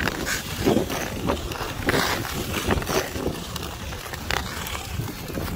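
Ice skate blades scraping and gliding on outdoor ice in uneven strides, a rough stroke every half second or so, over a low rumble of wind on the microphone.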